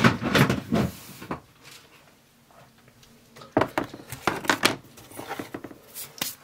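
Plastic knocking and clattering as a small plastic enclosure is set down in a large clear plastic tub and its clip-on lid is pulled off and laid beside it, in three short bursts of clicks and knocks.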